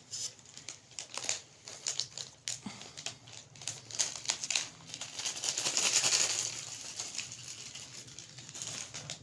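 Gift-wrapping material crinkling and rustling as it is handled, with many short crackles and a longer, louder rustle about six seconds in.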